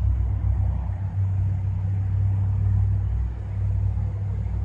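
Steady low rumble, with a faint humming undertone.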